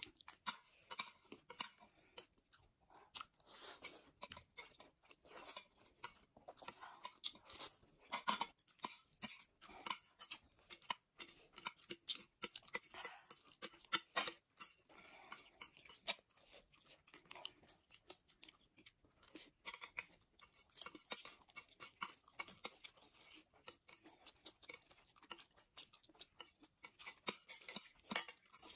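Close-miked eating sounds of two people eating noodles and dumplings: chewing, with frequent irregular small clicks of metal chopsticks against the plates.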